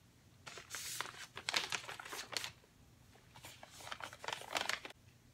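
A wrapper crinkling as it is handled, in two bouts of a second or two each.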